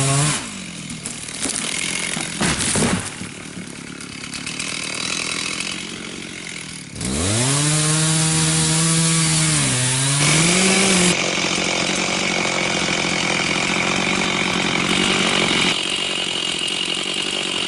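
Two-stroke chainsaw cutting into a wild black cherry trunk. The engine revs up sharply about seven seconds in, dips and recovers around ten seconds under the load of the cut, then runs hard and steady in the wood.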